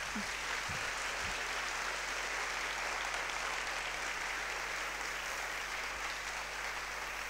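Large seated audience applauding, a dense steady clapping that eases slightly near the end.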